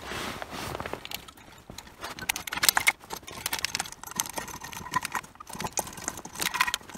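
Bolts, a screwdriver and the aluminium alternator cover clicking and clinking as a new stator coil is seated and bolted into the cover. There is a steady scatter of small knocks, with two short metallic rings in the second half.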